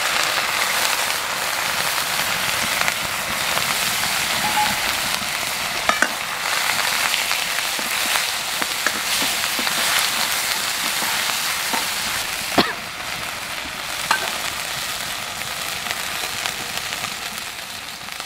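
Ginger and fennel-seed paste sizzling steadily as it fries in hot mustard oil in a wok, stirred with a steel ladle that clinks sharply against the pan a few times.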